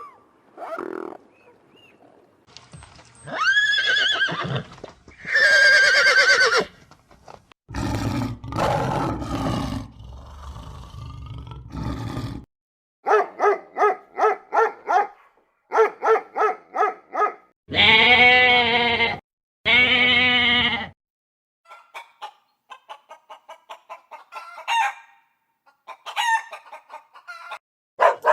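Chickens calling: two long pitched crows, then runs of short, quick clucks among other separate calls.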